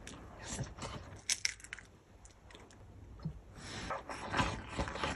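Wooden chopsticks clicking and scraping against a metal mess tin while rice is eaten from it, a few scattered taps at first, then a denser run of scrapes and eating sounds as rice is shovelled in from the tin's rim.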